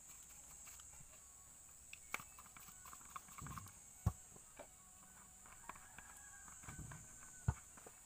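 Scattered clicks and knocks of a diesel fuel filter bowl and hand primer pump housing being handled and fitted together by hand, the sharpest knocks about two, four and seven and a half seconds in.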